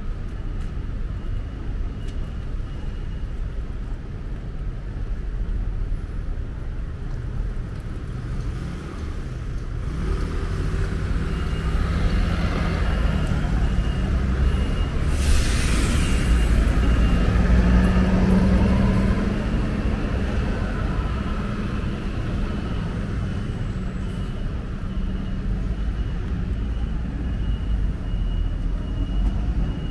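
City street traffic: a steady low rumble of passing vehicles, swelling as a vehicle's engine passes close in the middle, with a brief hiss like a bus's air brake at its loudest point. A faint, evenly repeating high beep sounds through much of it.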